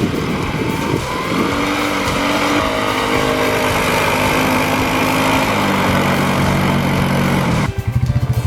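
Snowmobile engine running and revving under way. Near the end it changes abruptly to a rapid pulsing engine sound.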